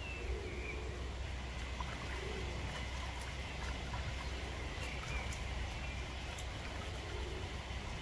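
Outdoor pond ambience: light water splashing and trickling as a Muscovy duck bathes, over a steady low rumble of wind on the microphone, with a few faint bird chirps.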